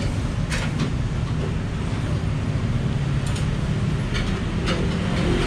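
Steady low rumble of a busy eatery, with a few short clicks of spoons against ceramic soup bowls.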